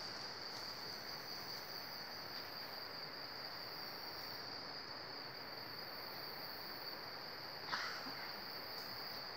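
Steady, high-pitched drone of rainforest insects, over a soft hiss, with one brief crackle near the end.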